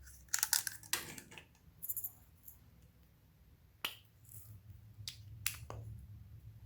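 Slime being kneaded and pressed by hand, making sharp sticky pops and clicks: a quick cluster in the first second, then scattered single pops.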